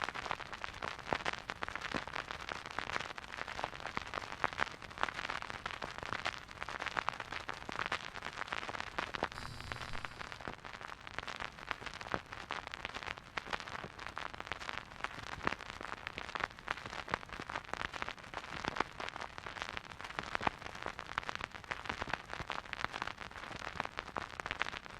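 Vinyl record surface noise from a silent groove: dense, irregular crackles and pops over a steady hiss.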